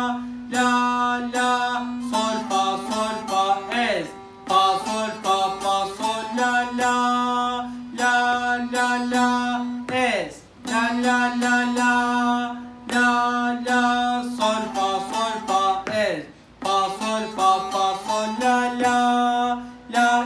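Short-neck bağlama (kısa sap saz) played in quick plucked strokes, running a Turkish folk-song (türkü) melody over a steady open-string drone. The playing comes in phrases, with brief dips about every six seconds.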